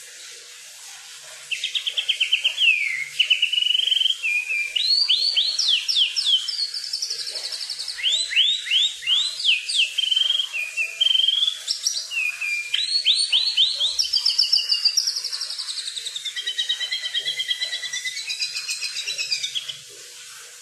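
A songbird, the bird called kukluk in Indonesia, singing a long, varied song of fast trills, quick rising and falling slurs and rattling phrases. It starts about a second and a half in and stops shortly before the end.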